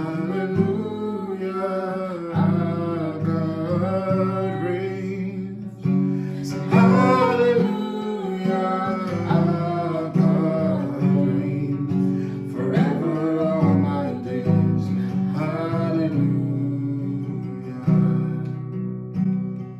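Acoustic guitar strumming chords steadily while a voice sings along in drawn-out phrases without clear words.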